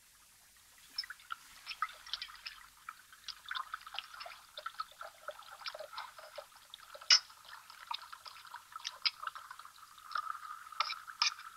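Wine glugging steadily out of a glass bottle into a tin mug, starting about a second in, while a spoon clicks and scrapes against a metal pan of beans. One sharp clink of the spoon about seven seconds in is the loudest sound.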